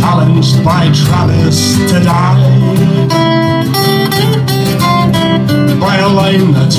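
Acoustic guitar strummed while a man sings a folk song live, his voice wavering through the lines with held notes in the middle.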